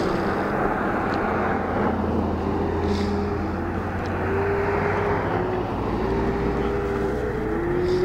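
Cars passing one after another on a highway, their tyre and engine noise swelling and fading as each goes by.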